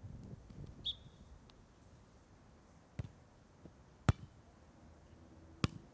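A volleyball struck by hand three times during a rally: sharp slaps a second to a second and a half apart, the second one the loudest.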